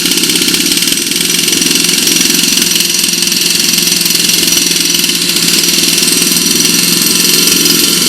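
Small petrol engine of a hand-held power tool running steadily at high speed.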